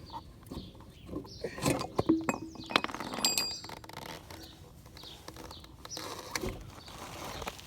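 Metal motorcycle parts clinking and knocking together as they are handled, with a cluster of knocks about two to three seconds in, one of them ringing briefly.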